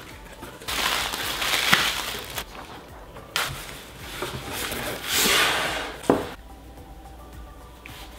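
Cardboard shipping box being opened by hand: flaps pulled open and packing material rustled and lifted out, in three bursts of scraping and crinkling, followed by a sharp knock about six seconds in.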